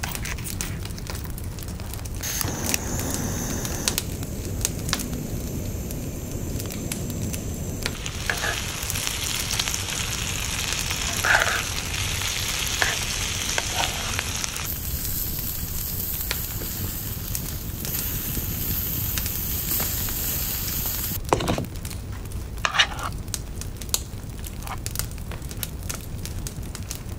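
Onions and bell peppers frying in a small skillet, a steady sizzle that changes level in stretches, with scattered clicks of metal tongs stirring them in the pan.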